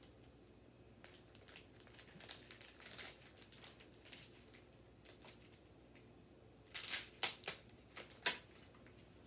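Plastic packaging being handled and crinkled during unboxing: soft scattered rustles and crackles, then a burst of louder, sharper crinkles about seven to eight seconds in.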